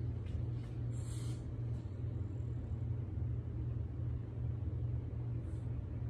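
Steady low room hum, with a short rustle of paper pages about a second in and a fainter one near the end.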